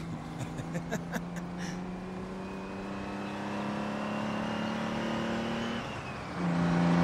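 Semi-truck diesel engine running steadily under load, its drone slowly rising in pitch and loudness, then coming in much louder near the end as the truck draws close. A few light ticks in the first second.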